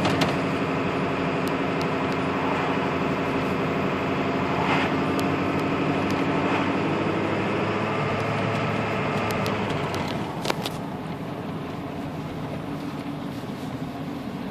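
Ford 7.3 L Powerstroke turbo-diesel V8 running under steady driving, heard from inside the cab. The engine note is steady, then drops in level about ten seconds in with a click. The owner wonders whether the changed engine sound at steady speed comes from the exhaust back pressure valve.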